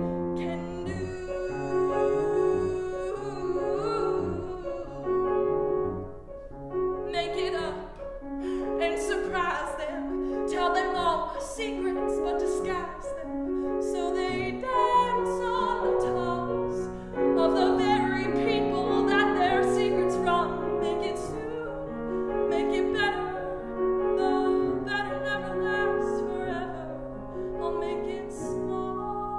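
A woman singing a musical-theatre song with grand piano accompaniment.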